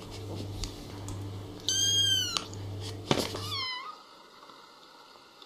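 A young kitten gives a high-pitched meow that rises and falls, about two seconds in, then a shorter falling meow about a second later, over a low steady hum.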